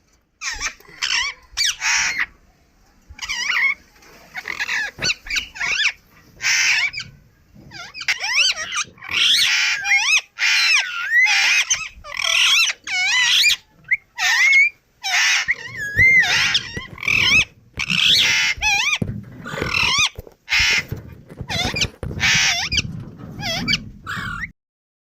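Indian ringneck parrot calling and chattering in a long run of short, high-pitched bursts, many with rising and falling whistled glides.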